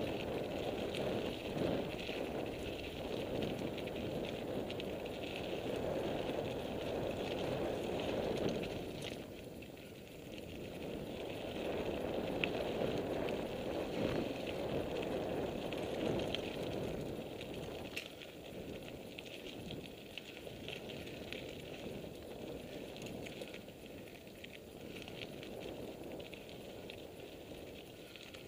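Mountain bike riding down a gravel singletrack: tyres crunching over loose stones and the bike rattling, a steady rough noise with scattered small clicks that eases off in the last third.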